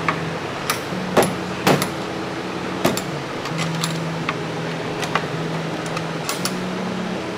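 Sharp clicks and knocks of hands working an Aero Catch quick-release bumper fastener and the front bumper edge into place on a Nissan 240SX, several of them spread out, the loudest about a second and a second and a half in.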